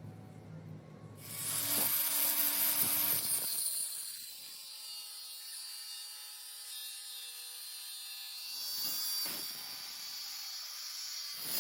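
Power drill running, a steady motor whine with a hiss, starting about a second in.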